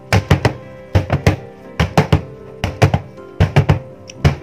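Metal cake tin full of batter tapped repeatedly on the counter, giving sharp thuds in quick irregular clusters of two or three to settle the batter. Background music plays underneath.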